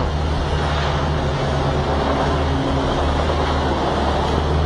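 Pagani Zonda R's V12 engine idling with a steady low note and no revving.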